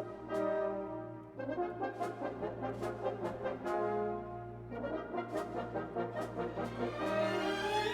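Instrumental music with long held, horn-like notes over a regular light tap.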